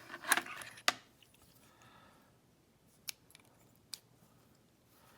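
Small metal clicks and clinks from handling a disassembled padlock core and small tools: a short cluster near the start, a sharp click about a second in, and two more isolated clicks later.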